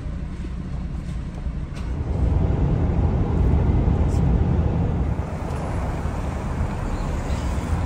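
A car driving, heard from inside the cabin: a steady low rumble of road and engine noise that grows louder about two seconds in.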